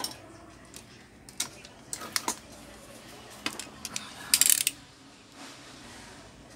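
Small metal tools being handled on a workbench: scattered light clicks and taps, then a louder metallic clatter lasting about half a second a little past the middle.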